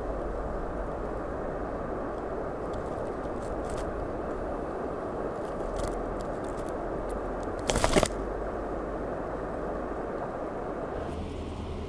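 A mouse nibbling at seed groundbait, with faint small crunching ticks over steady outdoor background noise. A short, louder rustle comes about eight seconds in.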